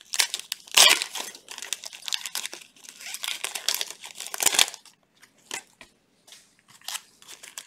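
Foil trading card pack wrappers being torn open and crinkled by hand, in irregular crackling bursts, loudest about a second in and again around four and a half seconds in, then thinning to a few light rustles.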